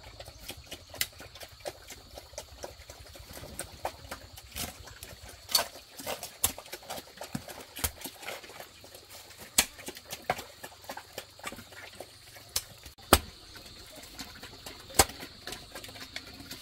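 A hoe chopping and scraping into wet clay soil: irregular knocks and soft wet slaps, a few much louder than the rest, under a faint steady high-pitched hum.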